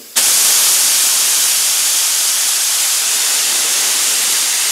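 Paint spray gun with no cup fitted, blowing compressed air with the trigger held: a loud, steady hiss that starts just after the beginning. The air regulator is turned down, so it runs at low pressure and reduced airflow.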